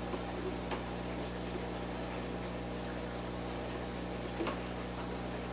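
Steady electrical hum and hiss of room background, with a few faint clicks as the plastic lid and tubing of the drip-doser jug are handled and tightened.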